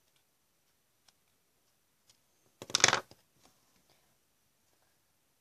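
Plastic-handled scissors clattering briefly on a tabletop as they are put down, once about three seconds in; otherwise near quiet.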